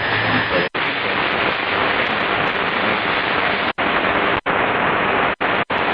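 Shortwave AM receiver tuned to a weak 60-metre-band signal on 4785 kHz, a mirror signal of China National Radio 1, heard as steady loud static with no program audio coming through. The hiss cuts out to silence for a split second about five times.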